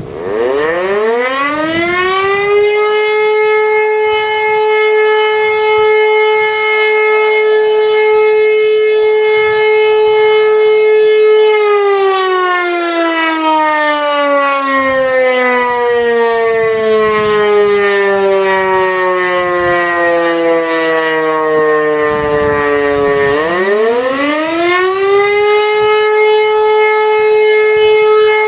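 E57 electro-mechanical siren, driven by a 5 kW three-phase motor, on a routine test run. It winds up to a steady howl, holds it for about ten seconds, sinks slowly for about twelve seconds as the rotor runs down, then winds up again to full pitch near the end.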